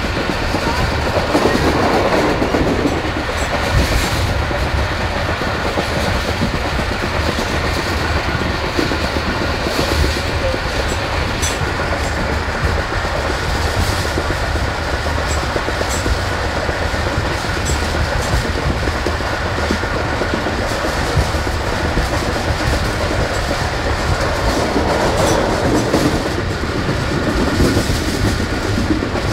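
Tezgam Express passenger train running at speed, heard from a coach window: a steady rumble with the clickety-clack of wheels over rail joints and occasional sharp clacks.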